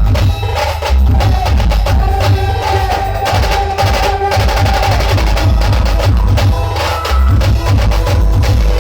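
Indian brass band playing a film song: a held brass melody over heavy, rapid bass drum and percussion beats.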